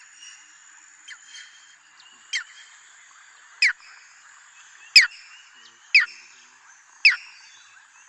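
Striated heron calling: five short, loud calls about a second apart, each a quick falling note, starting a couple of seconds in, over a steady high hiss.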